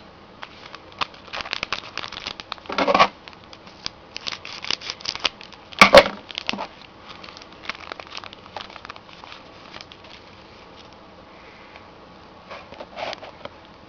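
Crinkling and tearing of a hockey trading-card pack wrapper as it is opened by hand, with cards handled. Busy crinkling with a sharp snap about six seconds in, then mostly quiet.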